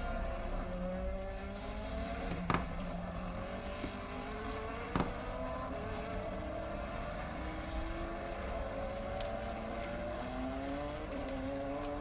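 Recorded race car engine from a Le Mans test lap playing in the background, its pitch climbing again and again as it accelerates. Two sharp clicks stand out, about two and a half and five seconds in.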